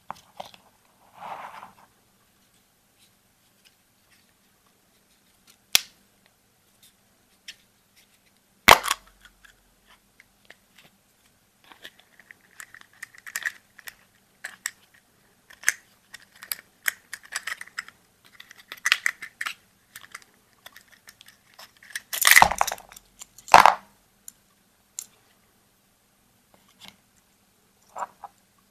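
A yellow plastic Kinder Surprise toy capsule and the small plastic toy parts inside it being handled, opened and set down on a tabletop: sharp plastic clicks and knocks with light clicking and rustling between. The loudest knock comes about nine seconds in, and a cluster of knocks comes a little past twenty seconds.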